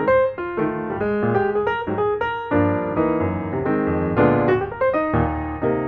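Background piano music, a run of struck notes and chords.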